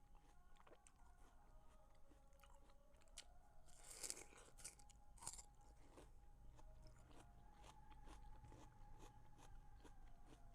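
A person biting and chewing watermelon close to the microphone: faint wet crunches and mouth clicks, with the loudest crunch about four seconds in and another just after five seconds.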